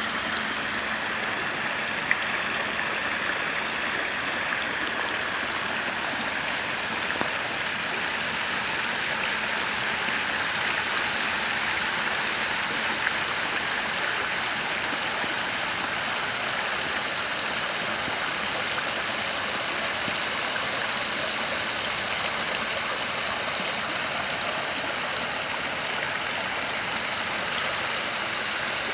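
Steady rush of running water, fresh rain runoff flowing after a storm, holding at an even level throughout.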